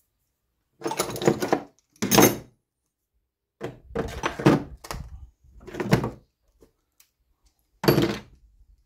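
A series of clunks and knocks in five separate bursts, each lasting up to about a second, with silence between them.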